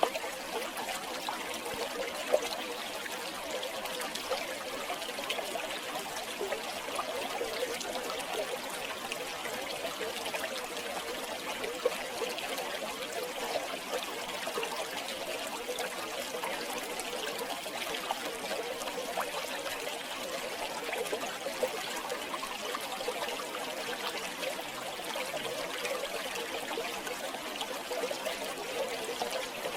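River water flowing and trickling in a steady, bubbling stream, with a couple of brief sharper clicks.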